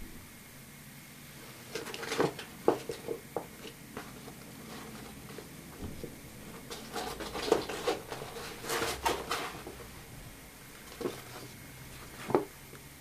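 A camouflage fabric bag being handled on a wooden table: cloth rustling with light knocks and clicks, in several short bursts.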